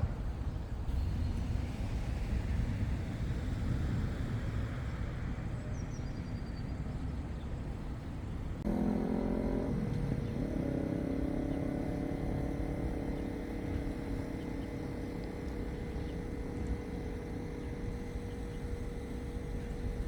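City street traffic, a steady low rumble of passing vehicles. About nine seconds in, a nearby vehicle's engine or motor comes in suddenly, its pitch shifting briefly, then settles into a steady hum.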